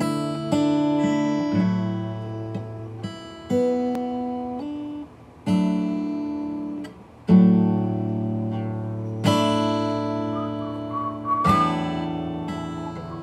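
Song soundtrack of strummed acoustic guitar chords, re-struck every second or two with short pauses between phrases. A whistled melody comes in near the end.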